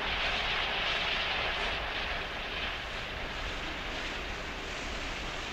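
Steady hissing rush of a gas cutting torch burning the experimental Oxyhydnite gas through a steel panel, a little louder in the first two seconds or so, then easing slightly.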